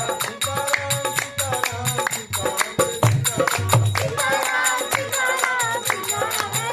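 Devotional bhajan: a singing voice over a steady beat of percussion strokes and low drum pulses, the voice strongest in the second half.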